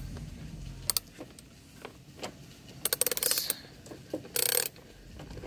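Hand ratchet and socket clicking and clinking on the mower engine's shroud bolts as they are loosened, with a quick run of ratchet clicks about three seconds in and a short metallic scrape about a second later.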